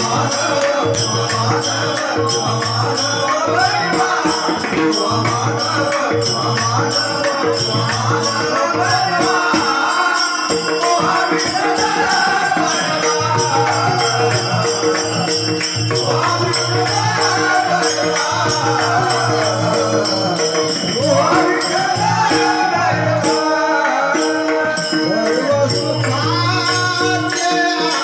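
Marathi devotional bhajan singing: a voice sings a wavering melodic line over steady held drone notes, with a continuous jingling hand-percussion beat.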